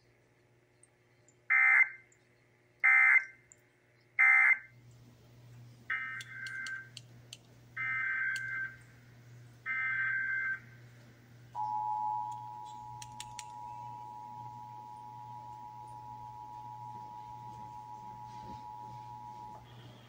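Emergency Alert System data and tones. Three short, raspy bursts of SAME digital data, the end-of-message code, come from an AM weather radio's speaker. Then come three more SAME header bursts, then the steady two-tone EAS attention signal, held for about eight seconds.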